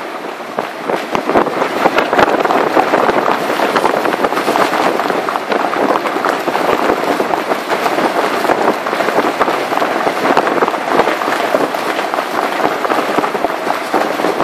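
Loud, steady rushing noise with constant crackling on the microphone: wind and rough sea heard from a boat underway.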